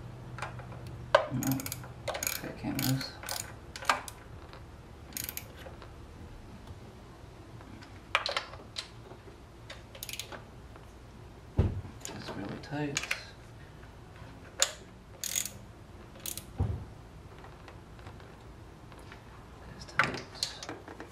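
Hand socket ratchet clicking in short runs as bolts are run down on the engine, with loose clinks of tools and a couple of dull knocks in between.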